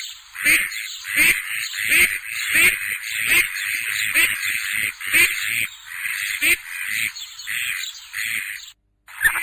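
A group of ducklings peeping: many high, overlapping calls in quick succession. The peeping breaks off for a split second near the end, then starts again.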